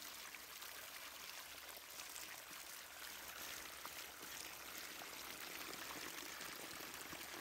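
Faint steady hiss with a few light ticks, and no music.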